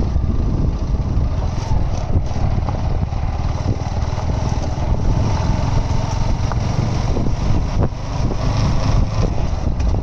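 A vehicle engine running on the move, with steady rumbling noise over the microphone.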